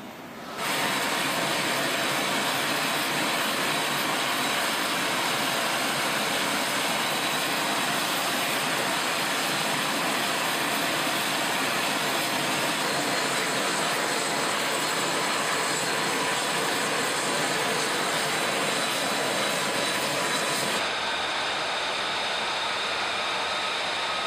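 F-35 fighter's Pratt & Whitney F135 turbofan running steadily on the ground: a constant loud rush of jet noise with a high turbine whine over it. Near the end the rush thins a little and the whine stands out more.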